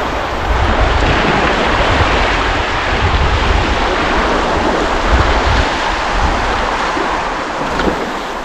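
Wind buffeting the microphone over a steady wash of ocean water, with a heavy, uneven low rumble.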